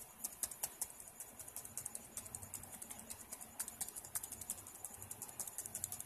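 Dell Inspiron N4050 laptop keyboard keys being pressed one after another, a quick, uneven run of light clicks several times a second: the repaired keyboard being tested key by key.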